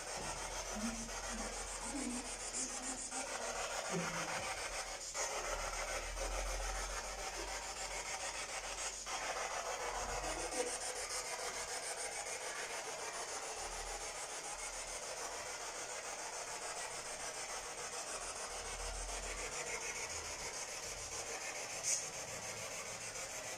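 A steady hiss of static-like noise, with faint low rumbles coming and going and a brief click near the end.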